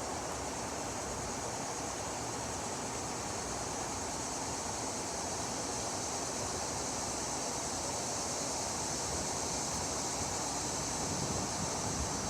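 Wind blowing steadily, a constant rushing hiss with no breaks or gusts.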